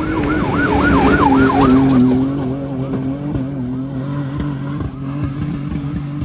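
Long-travel Toyota Tacoma prerunner's engine running hard at high revs as the truck speeds past on a dirt road, a steady high engine note. Over the first two seconds or so a warbling, siren-like whine rises and falls about four times a second.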